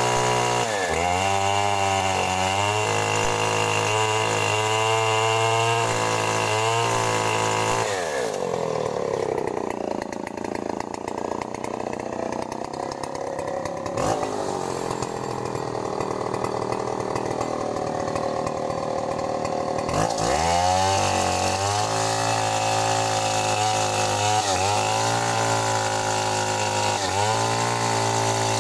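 Two-stroke chainsaw engine running at high revs, its pitch dipping and recovering again and again. For about ten seconds in the middle it drops to a lower, duller note, then revs back up.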